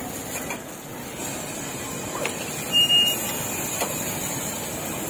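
Street-food stall ambience: a steady din with a few light knocks, and a short high squeal about three seconds in.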